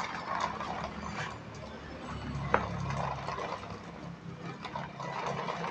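Plastic toy truck and trailer rolling across tiles, pulled on a string, its plastic wheels and load of plastic animal toys rattling steadily. One sharp click about two and a half seconds in.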